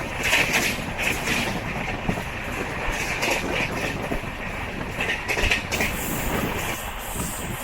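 Passenger coach of an express train running along the track, heard from inside: a steady rumble of wheels on rail with irregular short rattling bursts about a second apart.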